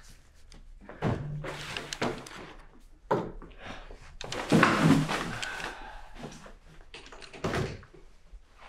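A series of thuds and knocks with rustling between them, one every second or so, the loudest about halfway through.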